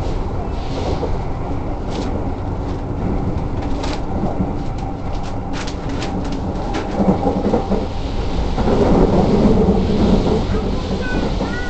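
Keikyu commuter train running at speed, heard from inside the car: a steady low rumble from the wheels and running gear with scattered rail clicks. It grows louder about two-thirds of the way through, and a few faint high squeaks come near the end.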